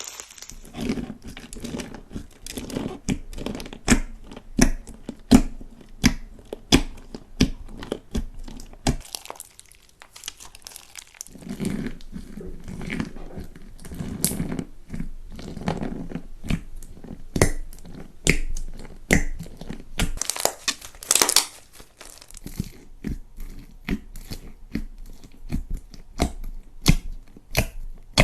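Slime being squeezed and worked by hand, giving a string of sharp crackling pops and squelches, with a short lull about ten seconds in and a dense run of crackling about twenty seconds in.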